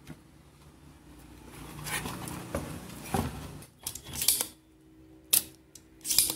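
Handling noise as a circuit board is turned over, then three sharp clicks about a second apart: a spring-loaded desoldering pump being fired to suck solder off a power transistor's legs.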